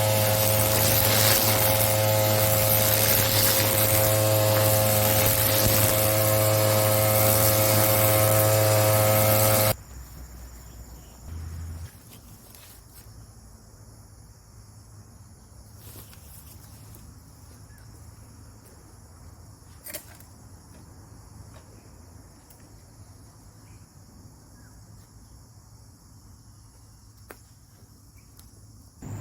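Husqvarna 131R two-stroke brushcutter engine running steadily at high revs, then stopping abruptly about ten seconds in. Insects, crickets, keep up a faint steady high buzz for the rest.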